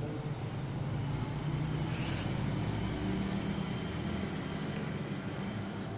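A steady low engine hum, its pitch shifting slightly now and then.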